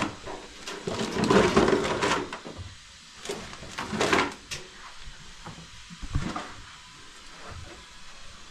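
Dishes and kitchenware clattering as they are handled and set down: a string of sharp knocks and clinks, with a busier rattling stretch about a second in and one loud knock about four seconds in.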